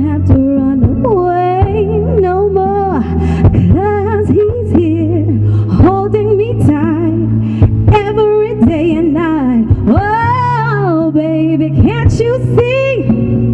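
Music: a song with a singer's wavering melody over steady sustained low bass notes.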